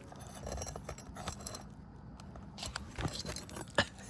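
Light metal clicks and scraping of a hand pry tool working under asphalt roof shingles, with one sharp click a little before the end.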